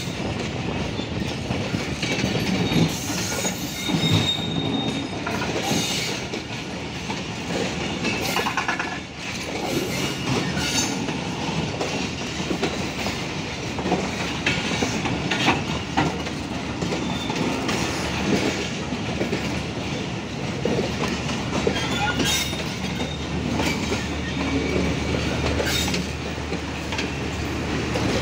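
Pakistan Railways passenger coaches rolling past on the rails. There is a steady rumble, the wheels click irregularly over the rail joints, and a thin wheel squeal rises briefly about four seconds in.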